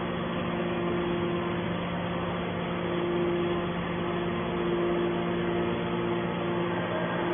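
Heavy scrap-processing machinery running with a steady hum.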